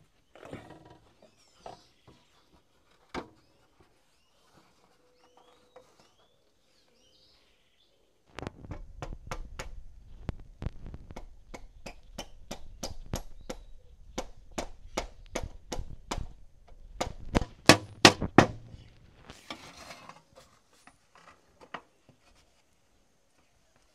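Hammer driving nails to fix a thin sheet onto the wooden post of a hand-built sugarcane press: a long run of steady blows, about three a second, starting about eight seconds in. The last few blows are the loudest and end a couple of seconds later. Faint bird chirps come before the hammering.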